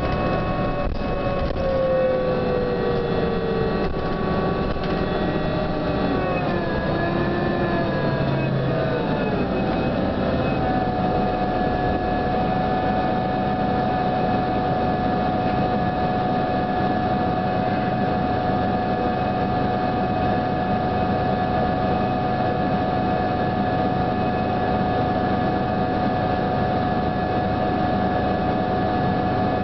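Interior sound of a New Flyer DE42LFA diesel-electric hybrid bus: the drivetrain whines with several tones over the running rumble, the tones sliding down in pitch about six to nine seconds in, then settling into one steady high whine. This whine is the unusual sound this bus is known for.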